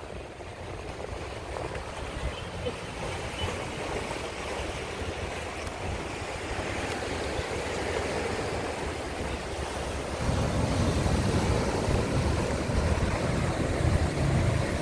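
Sea surf breaking and washing against shoreline rocks: a steady rushing noise that grows louder, with a deeper rumble coming in about ten seconds in.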